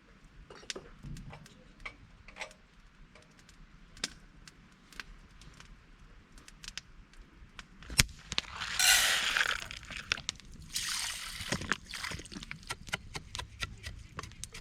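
Light clicks and taps of camp utensils, a sharp knock about eight seconds in, then liquid poured and splashing in two bursts, with small drips and ticks after.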